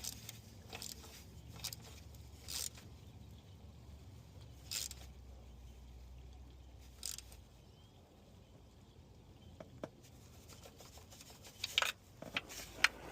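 Hand ratchet clicking in short, separate strokes a few seconds apart, with a quicker cluster near the end: transmission oil pan bolts being snugged down over the new gasket.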